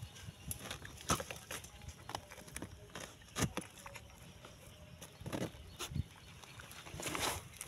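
Dogs snuffling and pawing around a fallen palm log: scattered soft scratches and knocks, with a longer rustle near the end.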